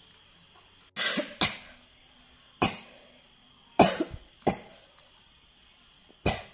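A series of short, sharp coughs, about seven in all: two together about a second in, one more, then three in quick succession, and a last one near the end.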